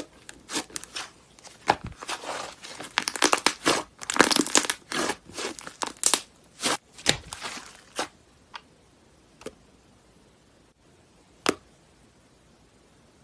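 Slime being squeezed and stretched by hand, giving dense crackling and popping for most of the time, then only a few scattered pops near the end.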